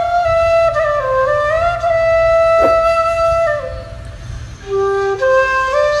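Background music: a melody of long held notes stepping up and down in pitch, dipping quieter for a moment about four seconds in.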